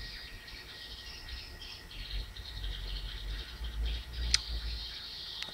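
Small birds chirping and twittering in a rapid, rattling chatter, over a low rumble, with one sharp click about four seconds in.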